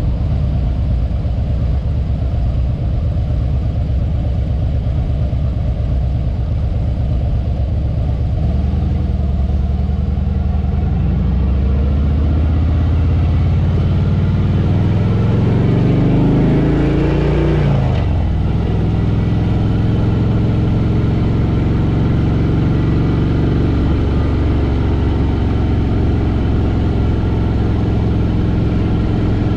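Harley-Davidson Fat Boy Lo's V-twin engine running under way. It climbs in pitch over several seconds, falls back sharply about seventeen seconds in, then runs steadily.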